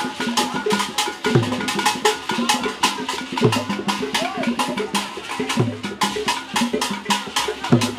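Ghanaian traditional drum ensemble playing: rapid, sharp stick strikes over a deep drum stroke that slides down in pitch about every two seconds.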